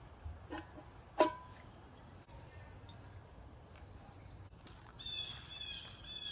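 Coffee being poured from a glass coffee pot into a mug, faintly, after a sharp clink with a short ring about a second in. A bird calls repeatedly near the end.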